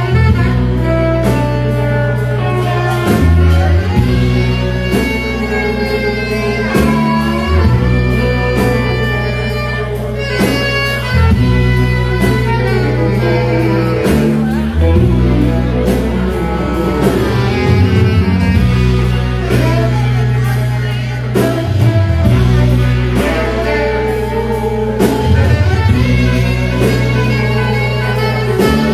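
Live band playing loud, with electric guitars over bass and drums. The guitar lines bend and glide above a heavy, steady bass.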